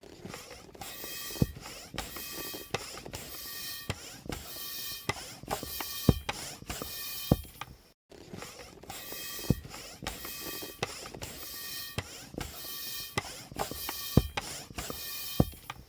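Balloon being inflated in quick rhythmic strokes, each a short rush of air with a faint whistle and sharp clicks, about one and a half strokes a second. The run breaks off briefly about eight seconds in and then repeats.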